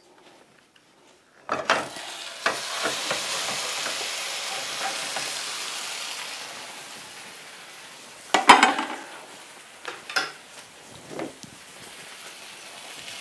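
An omelette goes into a hot oiled frying pan about a second and a half in, with a sudden loud sizzle that slowly dies down to a steady frying hiss. A sharp clatter against the pan a little after the middle, the loudest sound, is followed by a couple of lighter knocks.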